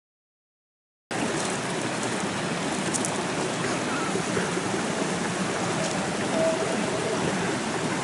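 Silence for about a second, then a steady rush of running water from a mountain stream.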